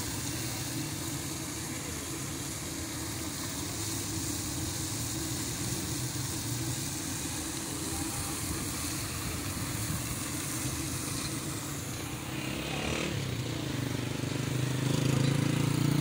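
Steady outdoor background noise: a continuous hiss with a low hum beneath it. The hum grows louder over the last few seconds.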